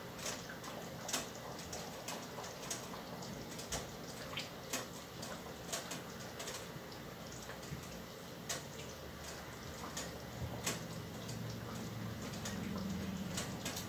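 Plastic ladle scooping soup from an enameled cast-iron pot and pouring it into small ceramic ramekins: light, irregular taps and clicks of the ladle against the pot and dishes, about once or twice a second, with soft pouring and splashing of the soup.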